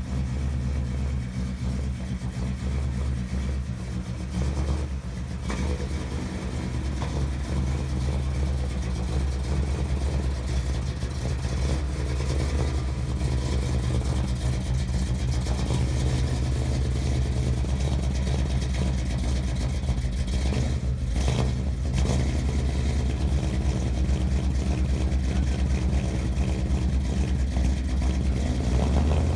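Chevrolet 327 small-block V8 in a 1962 Impala SS running steadily with an even exhaust note, among its first runs after decades off the road.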